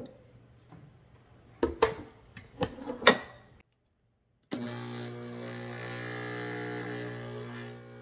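A few clunks as the lid and jar of a Cosori countertop blender are set in place, then about four and a half seconds in the blender motor starts and runs steadily, blending frozen berries, banana and milk for a smoothie bowl.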